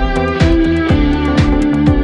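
Background music with a steady beat: a low kick drum about twice a second under sustained pitched notes.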